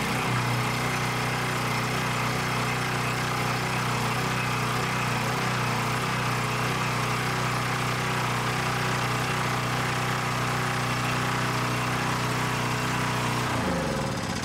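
Small portable generator's single-cylinder engine running steadily on its freshly cleaned and regasketed carburetor, then shut off near the end, its note falling as it winds down.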